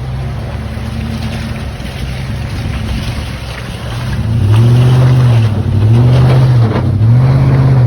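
Chevrolet Silverado pickup's engine running under load in four-wheel drive, then revving up and down in three surges from about halfway in, louder with each push.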